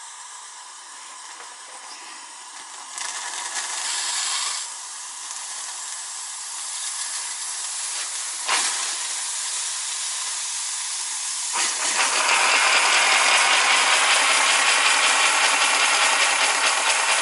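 Steady hissing from a 3-cylinder 0-8-4 live steam garden-railway locomotive under steam, with a sharp click about halfway through. Near two-thirds of the way through the hiss jumps suddenly louder and fuller, with a fast, grainy pulsing to it.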